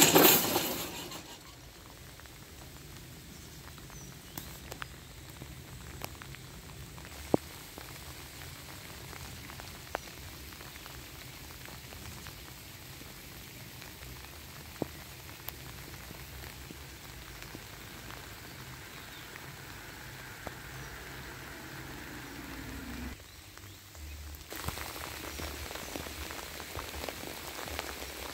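Steady light rain hiss with a scattered few sharp drop-like ticks, after a short loud burst of noise right at the start. About two-thirds of the way through it dips briefly, then comes back a little louder.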